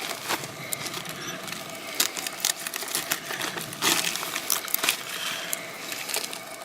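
A live northern pike being killed and cut, with a run of irregular sharp crunches and clicks.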